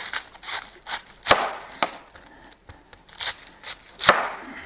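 Kitchen knife slicing through a red cabbage and knocking on a wooden chopping board: about a dozen irregular cuts and knocks, the sharpest about a second in and near the end.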